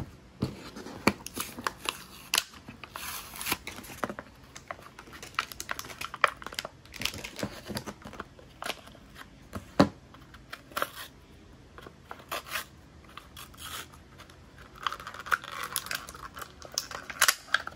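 Plastic and paper toy packaging being torn open and crinkled by hand: irregular rustling with sharp crackles and snaps, denser crinkling near the end.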